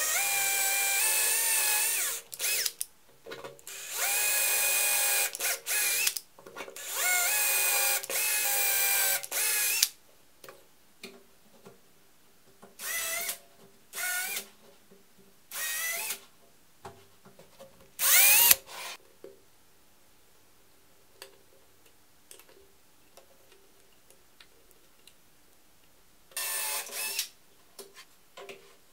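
Power drill running in bursts of a few seconds, drilling into 3D-printed plastic parts, its motor whine holding a steady pitch. The first bursts are longer. Later bursts are shorter, and one rises in pitch as the drill speeds up.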